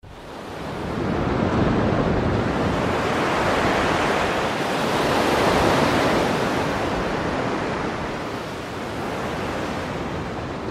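A steady rushing noise without pitch or beat, swelling in over the first second and holding level.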